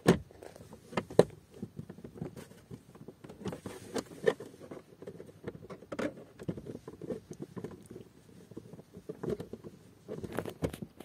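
Plastic fuse box cover panel under the dashboard being fitted back and pressed into place by hand: scattered plastic clicks and taps at irregular intervals, with a few more near the end.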